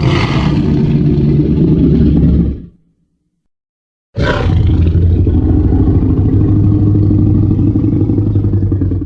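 Two Tyrannosaurus rex roar sound effects: a deep roar of about two and a half seconds, then after a short silence a longer deep roar of about five seconds, each opening with a harsher burst before settling into a low, rough rumble.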